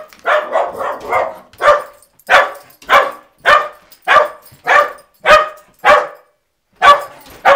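Small dog barking at the mail carrier: a quick flurry of barks at first, then single barks about every half second, with a brief pause near the end.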